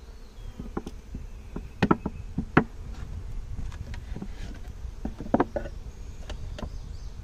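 Honeybees buzzing around an open hive, broken by scattered light knocks and clicks of wooden hive equipment being handled, a few of them sharper, about two and five and a half seconds in.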